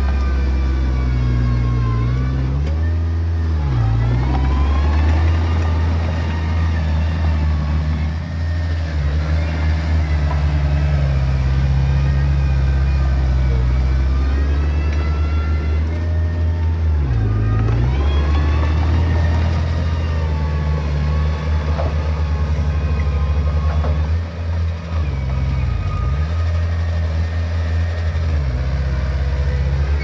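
Diesel engine of small earthmoving equipment running under load, its pitch sagging and recovering three times as the load comes on and eases, with a higher whine rising and falling along with it.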